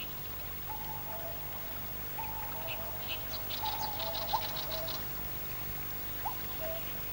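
Birds calling and singing, with short whistled notes and a fast high trill in the middle, over the steady sound of flowing water.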